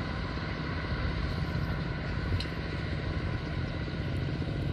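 Steady low rumble of road traffic, even in level throughout.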